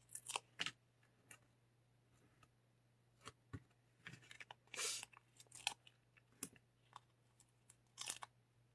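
Cardstock and paper pieces being handled and fitted together: scattered small taps, ticks and crinkles, with a longer paper rustle about five seconds in.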